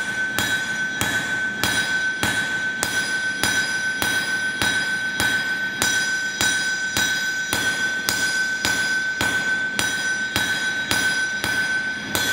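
Hand hammer striking a red-hot steel sword blade on an anvil in a steady rhythm, a little under two blows a second, with the anvil ringing on a high steady note between blows: hot-forging the bevels of a wakizashi blade.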